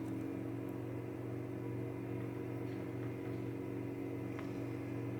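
Steady low electrical hum, with a couple of faint light clicks from a lock pick being jiggled in a Mul-T-Lock Interactive cylinder to free an inner pin caught on the counter milling.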